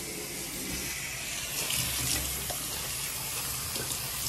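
Kitchen faucet running into a stainless steel sink while hands are rubbed and washed under the stream, the water splashing more from about one and a half seconds in.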